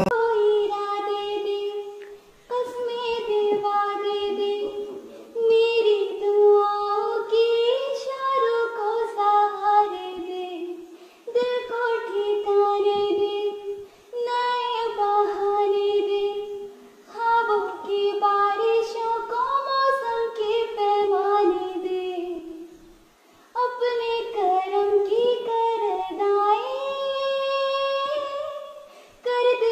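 A schoolgirl singing solo without accompaniment, in phrases of several seconds with short pauses for breath between them.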